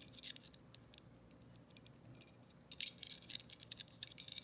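Faint light metallic clicks and scrapes of a small coil magazine spring being handled and fed back into a pistol magazine body, with a short cluster of clicks about three seconds in.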